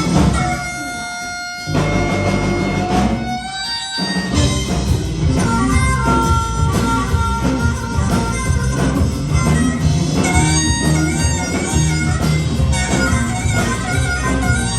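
Live blues band playing an instrumental passage, a lead instrument holding long pitched notes over the band. The bass and drums drop out briefly twice near the start, then the full band comes back in.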